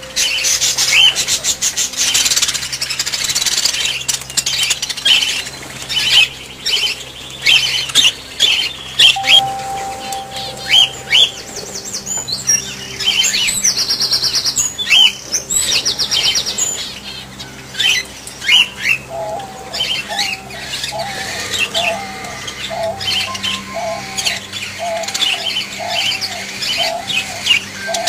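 A flock of cockatiels and other small parrots chirping and squawking, a dense run of quick, sharp calls. About two-thirds of the way through, one bird starts repeating a short whistled note about once a second.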